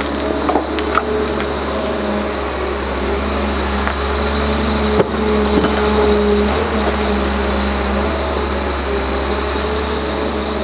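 Hyundai R320LC-9 tracked excavator's diesel engine and hydraulics running steadily under load as the bucket lifts and the boom swings and reaches out, with one sharp knock about five seconds in.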